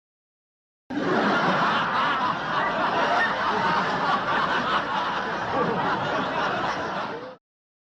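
Studio audience laughter, a laugh-track sound effect: many people laughing together, starting about a second in and cutting off abruptly near the end.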